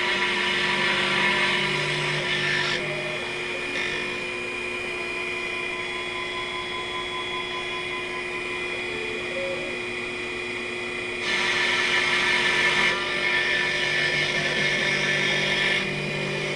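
Taig CNC mill cutting a horizontal roughing pass with a quarter-inch flat end mill: a steady spindle whine throughout, with louder stretches of cutting noise in the first few seconds and again from about two-thirds of the way through.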